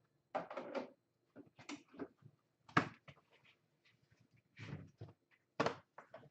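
Handling sounds: a series of short knocks and rustles with silent gaps between them, the sharpest about three seconds in and again near the end.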